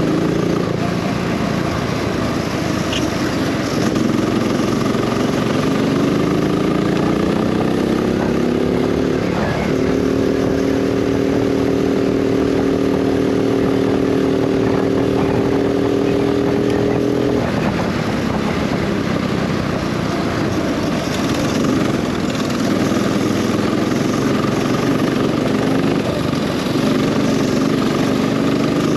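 Go-kart engine heard from onboard through a lap. Its pitch climbs under acceleration, holds high and steady for several seconds at full throttle, drops suddenly, then climbs again near the end.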